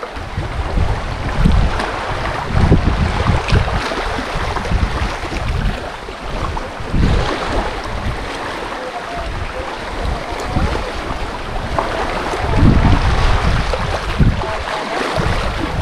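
Small waves lapping and washing over shoreline rocks, with wind buffeting the microphone in repeated low rumbling gusts.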